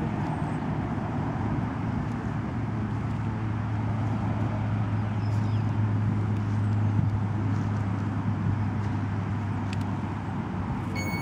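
A steady low drone over outdoor noise, joined by a stronger low hum a couple of seconds in. Near the end a short electronic beep sounds as a lift battery is plugged into the UAV.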